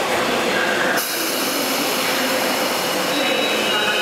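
Steady train noise with a hiss that steps up suddenly about a second in; faint high-pitched wheel squeal begins near the end.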